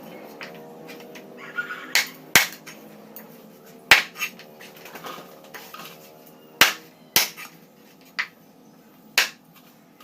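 Sharp, irregular knocks of kitchen utensils, about eight over the stretch, spaced a half second to two seconds apart, with faint held tones in the first half.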